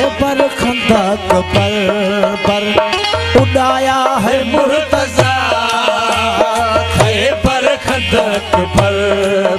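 Live Sindhi Sufi folk music, instrumental passage between sung verses: a wavering melody line over a steady hand-drum beat.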